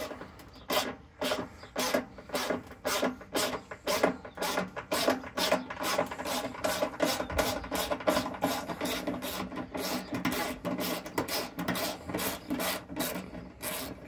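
Hand socket ratchet on an extension clicking in quick repeated strokes, backing out a rear fender bolt on a motorcycle.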